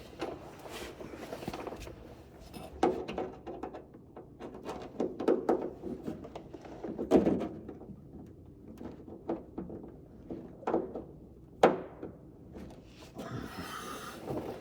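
Irregular knocks, taps and clicks of hands and tools working the fasteners of a car's front spoiler/rock guard, with one sharp click about three quarters of the way in and a short rustle near the end.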